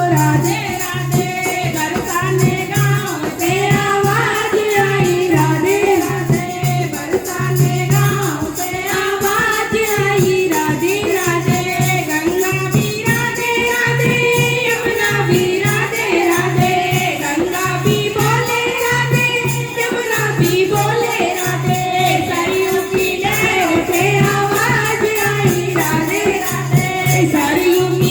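Hindi devotional bhajan to Radha, a singing voice carrying the melody over a steady, rhythmic percussion beat with jingling strikes.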